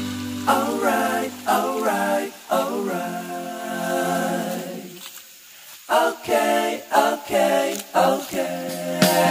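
Background music: a song's vocal passage, voices singing phrases with little or no instrumental backing, dipping briefly about five seconds in.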